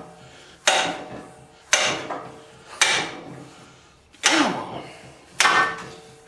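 Five sharp steel-on-steel knocks, roughly one a second, each with a short metallic ring. They come from the forklift lift cylinder's steel rod and gland being knocked together as the gland is worked off the rod.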